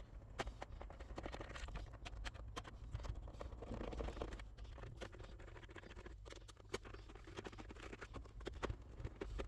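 Screwdriver work on a PlayStation 3's casing: small irregular clicks, ticks and scratching as screws are backed out and handled.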